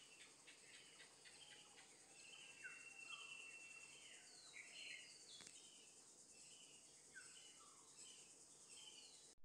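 Faint birdsong: several birds calling in short, downward-sliding chirps and occasional held whistles, over a steady high hiss.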